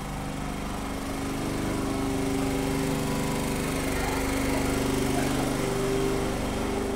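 A small engine running steadily with an even hum, louder through the middle and fading near the end.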